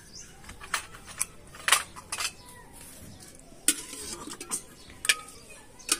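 Metal ladle clinking and scraping against a steel cooking pot and small steel bowls as curry is dished out, about seven sharp, irregular clinks.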